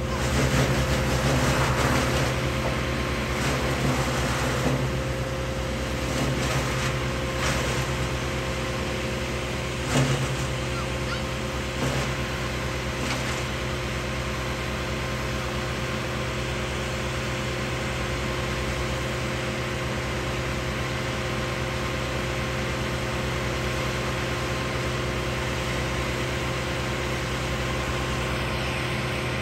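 Diesel tree-service machinery (a wood chipper, a skid-steer loader and a grapple truck) running steadily with a constant engine hum. There are scattered knocks in the first half, the sharpest about ten seconds in.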